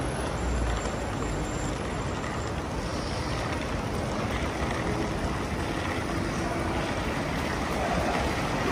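Steady background noise of road vehicles: traffic and engines running.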